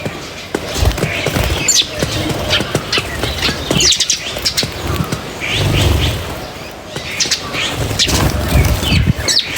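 Birds chirping: many short, quick chirps overlapping throughout, with a couple of low rumbles underneath, about a second in and around the middle.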